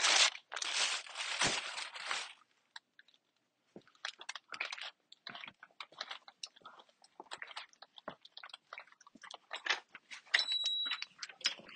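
Crunching and crackling handling noises: a loud rush of noise for about two seconds, then many scattered small clicks and crackles, with a brief high beep a little over ten seconds in.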